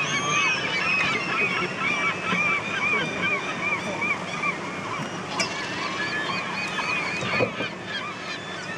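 A flock of gulls calling without pause, many short arched cries overlapping one another, over the steady rush of water. A brief knock stands out about seven seconds in.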